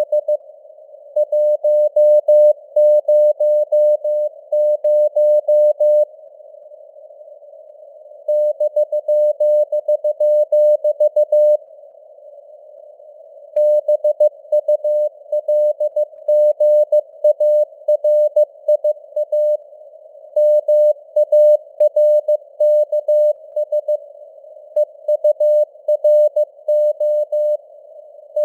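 Morse code at 15 words per minute: a tone of about 600 Hz keyed on and off in dots and dashes over a faint hiss of simulated radio noise. The keying stops twice for about two seconds, leaving only the hiss.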